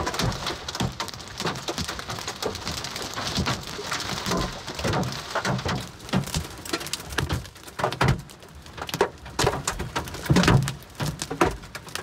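Hail and rain hitting the roof and windshield of a Subaru Crosstrek, heard from inside the cabin: a dense run of hard hits over a steady patter, growing sparser and more irregular in the second half.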